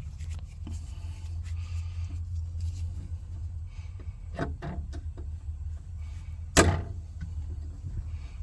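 Low steady rumble with a few light clicks about four and a half seconds in, and one sharp knock a couple of seconds later, the loudest sound.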